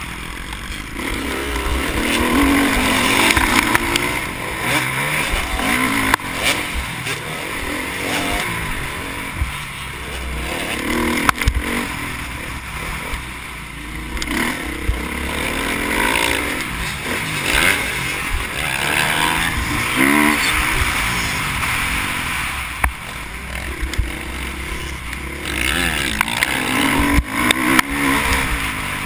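Motocross dirt bike engine heard from a helmet-mounted camera, revving up and down repeatedly as the rider works through the track, with wind rushing over the microphone. Occasional sharp knocks from the bike over the rough track.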